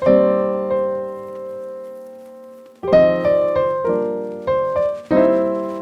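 Background piano music: a chord rings and fades slowly for nearly three seconds, then a run of single notes and another chord follow.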